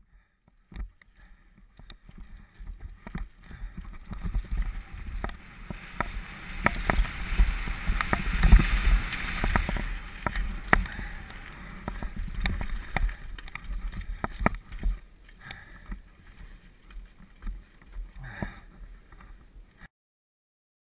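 Mountain bike descending a rough, rocky trail, heard through a helmet-mounted camera: a low rumble with the bike clattering and knocking over the rocks. It starts suddenly about a second in, is loudest about halfway through, and cuts off about a second before the end.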